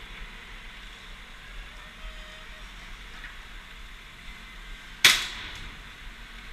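A single sharp airsoft gun shot about five seconds in, with a short echo trailing off, then a fainter click about half a second later.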